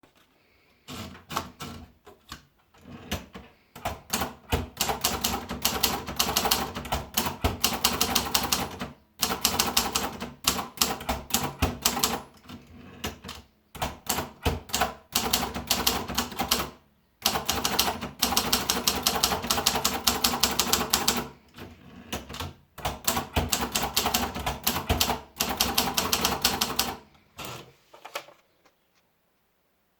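Torpedo 10/30 typewriter being typed on: rapid key strikes clacking in runs of several seconds, broken by short pauses, stopping a couple of seconds before the end.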